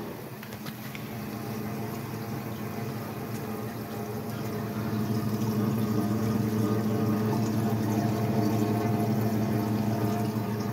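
Coolant draining from a 2-inch PVC drain pipe into a plastic tote and splashing into the pooled coolant, over the steady hum of the CNC machine running with its coolant and spindle on. It gets somewhat louder about halfway through.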